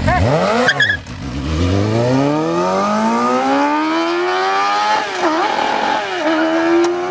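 Motorcycle engine accelerating hard, its pitch climbing steadily for about four seconds. About five seconds in it drops back at a gear change, then runs on in the next gear, with another brief dip near the end.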